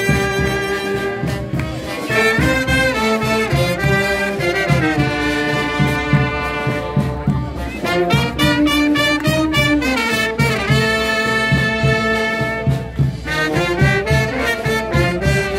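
Brass band music: held and moving brass notes over a steady beat.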